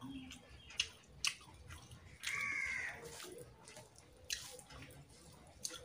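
Close eating sounds from a person eating rice and curry by hand from a steel plate: soft wet chewing and a few sharp clicks. About two seconds in, a bird gives one loud call lasting under a second, the loudest sound here.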